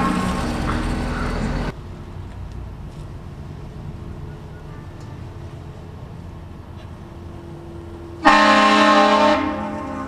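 Car-mounted Hornblasters train horn blasting several notes at once: the end of one blast cuts off abruptly about two seconds in, low street noise follows, and a second loud blast starts suddenly about eight seconds in, holding for about a second before fading.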